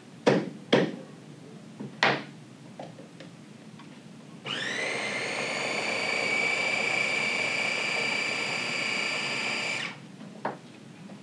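A few knocks of handling, then about four seconds in an electric blender starts, its motor whining up quickly to a steady pitch and running for about five seconds before cutting off, blending fruit and orange juice into a smoothie.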